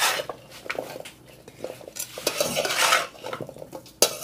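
A metal spatula scraping and knocking against a metal bowl while tossing raw fish and vegetable pieces with dry spices. A sharp clank at the start and another near the end, with scraping in between.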